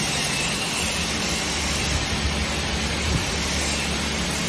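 Several automatic soft-close cabinet hinge assembly machines running together: a steady, dense hiss and rattle over a low hum.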